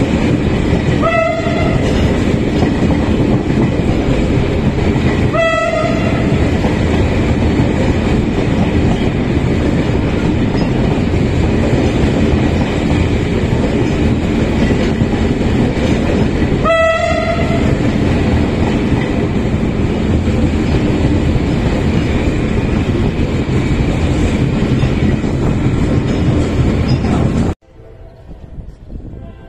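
Passenger train running at speed, a loud steady rush and rattle of the coach and its wheels on the rails heard from an open window. The locomotive horn gives three short blasts, about a second in, at about five and a half seconds and at about seventeen seconds. Near the end the sound cuts off suddenly to a much quieter scene.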